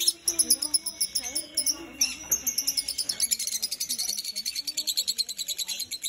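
Caged lovebirds chirping shrilly, scattered calls at first, then a fast, even run of about nine chirps a second from a couple of seconds in.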